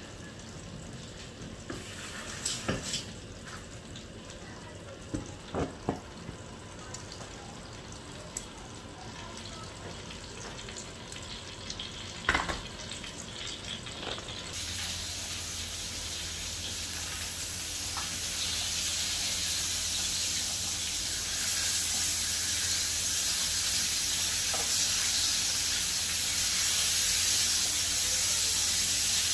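A few knocks and clatter, then, about halfway through, salmon fillets start sizzling in a frying pan: a steady frying hiss that grows louder, with a low steady hum under it.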